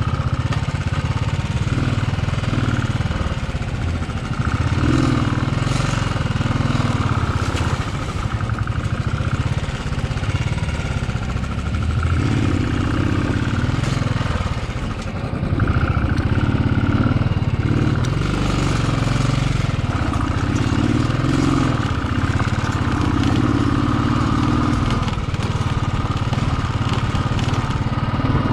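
Motorcycle engine running as the bike is ridden slowly over a rough, rocky dirt track. The rumble rises and falls with the throttle, dipping briefly about halfway through before picking up again.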